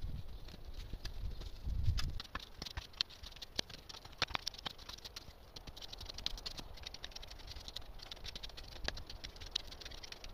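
Garden hoe scraping and chopping through a pile of dry leaf litter and soil, giving a run of crackly, rustling scrapes in irregular strokes, with a brief low rumble about two seconds in.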